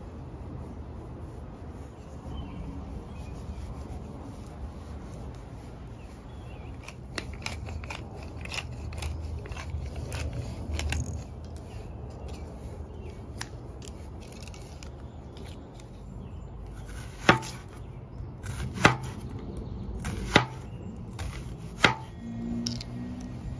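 Chef's knife cutting through an onion onto a bamboo cutting board: four sharp knocks of the blade on the board, about a second and a half apart, in the last third. Before them, only a steady low background rumble and a few faint light clicks.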